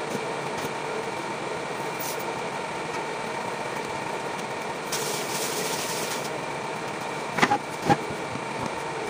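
Steady fan hum, with a brief hiss about five seconds in. Near the end, two sharp knocks about half a second apart as a tomato and vegetables are set down on a cutting board.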